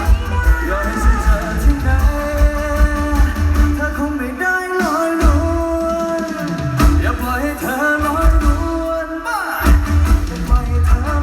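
Mor lam music played live through a large concert sound system: a singer holds long, wavering notes over a pounding bass-drum beat. The bass drops out briefly a few times.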